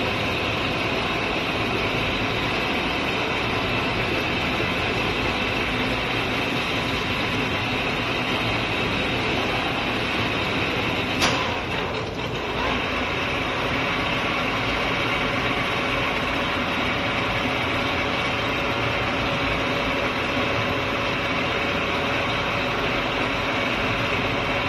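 Metal lathe running steadily while single-point cutting an M45 × 3.0 mm pitch thread on a stud bar. A sharp click comes about eleven seconds in, then a brief dip in the noise.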